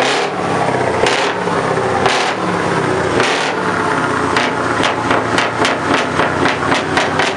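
Scania R480 truck's V8 engine running steadily at idle, overlaid by repeated sharp knocks, about one a second at first and then three or four a second from about halfway.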